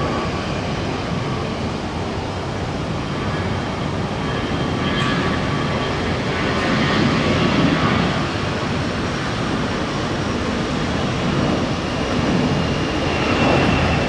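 Twin-engine jet airliner's engines running at takeoff power, a steady loud rush, as it accelerates down the runway toward rotation.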